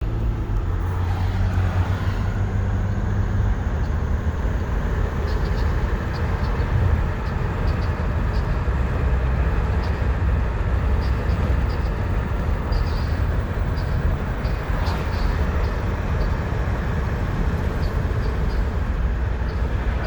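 A 2013 Ford Explorer with a steady low rumble, over which short high-pitched squeaks recur irregularly, often several in quick succession. The source of the squeak is unknown to the owner.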